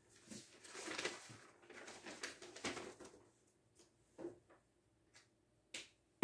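Faint rustling for about three seconds, then a few soft, separate clicks.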